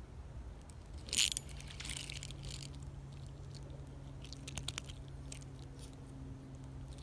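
A small sunfish splashing as it is lifted from the creek surface, a short sharp burst about a second in, followed by light clicks and rustles as it is grabbed by hand. A steady low hum starts just after the splash.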